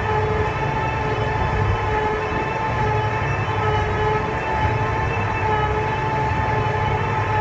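Twin vertical-auger feed mixer wagon running, its augers turning and churning a ration of silage and straw during the final stage of mixing. A steady mechanical drone with a constant whine over it.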